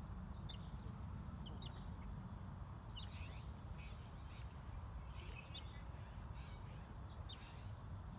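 Short, high, downward chirping calls come a few at a time every second or two over a steady low rumble.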